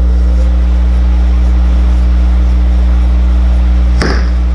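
Loud, steady low electrical hum on the microphone and sound-system feed, with a single sharp knock about four seconds in as the handheld microphone is bumped.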